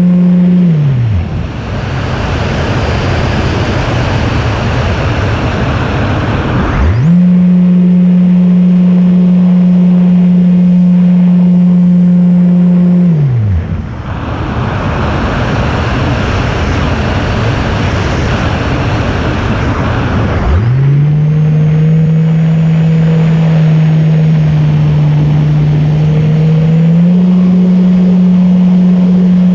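Onboard sound of an FPV RC plane's motor and propeller giving a steady buzzing drone. The throttle is chopped twice: each time the tone sinks away within a second, leaving rushing airflow noise for about six seconds, and then the motor comes back on sharply. After the second return the drone wavers a little, then steps up slightly near the end.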